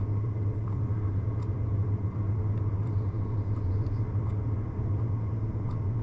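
Steady low hum of a Chinese diesel parking heater during start-up, with a few faint, irregular ticks from its quiet aftermarket fuel dosing pump, which can barely be heard.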